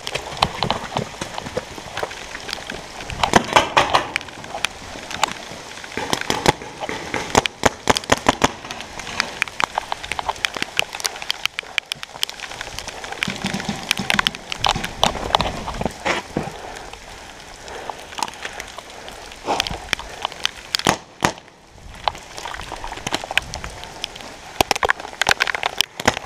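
Dye DAM electronic paintball markers firing in repeated quick strings of sharp pops, over a steady hiss of heavy rain.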